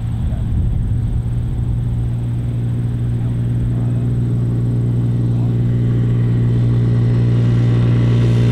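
Four-wheeler (ATV) engine running at a steady pitch, growing gradually louder as it approaches.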